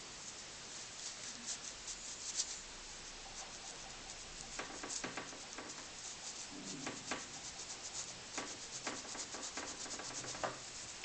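Cloth rubbing on the brass body of an Optimus No 415 blowtorch: many quick, irregular hand-polishing strokes.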